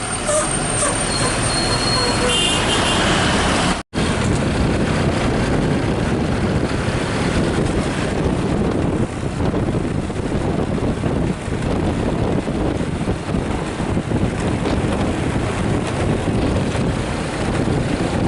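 Heavy road-vehicle noise: a loud, even engine and traffic rumble. A few brief high tones come in the first few seconds, and the sound drops out suddenly for an instant about four seconds in.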